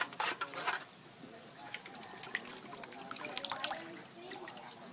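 Leftover soda dribbling and dripping from crushed aluminium drink cans into a steel bowl, with sharp metallic crinkles and clinks as the cans are squeezed and knocked together.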